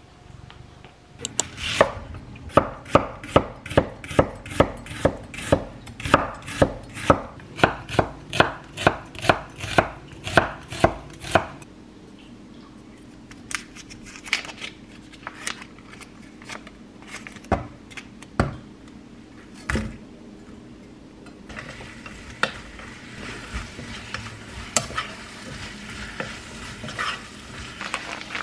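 Kitchen knife chopping on a cutting board, a steady run of about two strokes a second for some ten seconds. Then a few scattered utensil clicks, and in the last third a faint steady sizzle.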